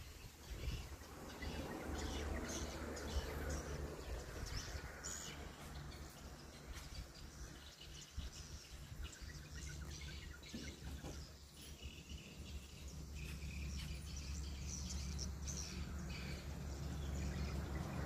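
Swiftlets chirping: many short, high twitters scattered throughout, over a steady low hum.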